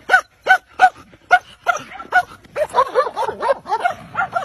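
A collie-type dog barking repeatedly in short, sharp barks, about three a second at first, then quicker and overlapping in the second half.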